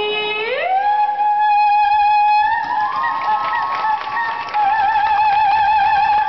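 A vocal group singing amplified through microphones, holding long notes. Half a second in, the lead note slides up about an octave and is held. A second, higher note joins a couple of seconds later, and vibrato comes into the held note a little past the middle.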